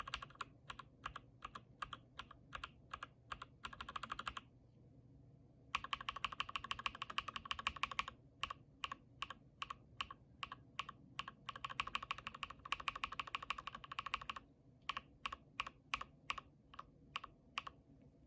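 Lubed and filmed linear mechanical keyboard switches being typed on. Fast runs of keystrokes alternate with slower, separate single presses, with a brief pause about four seconds in.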